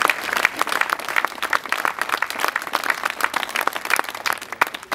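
Large outdoor crowd applauding: many overlapping hand claps, thinning out and growing quieter toward the end.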